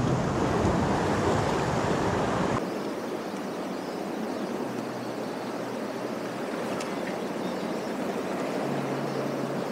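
Sea waves surging and washing against a rocky shore: a loud, even rushing noise that cuts off abruptly about two and a half seconds in, giving way to a quieter, steady hiss of the sea below a seawall.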